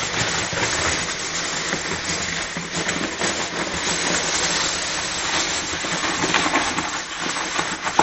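Hands rummaging through a box full of foam packing peanuts: a steady, dense rustling and crackling of the foam pieces rubbing and shifting against one another.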